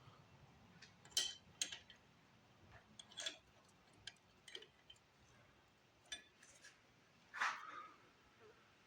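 Scattered light clicks and clinks of small metal engine parts and hand tools being handled and set down, the loudest about a second in and again near the end.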